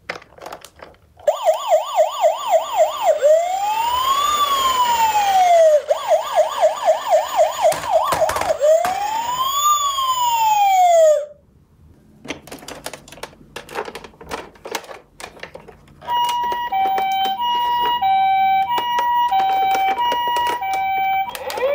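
Toy police car's electronic siren, switched on by pressing its roof light bar: a fast yelp alternating with a slow rising-and-falling wail, twice over, stopping suddenly. A few seconds of clicks and knocks from handling the plastic toys follow. Then a toy ambulance's two-tone hi-lo siren alternates steadily between two notes.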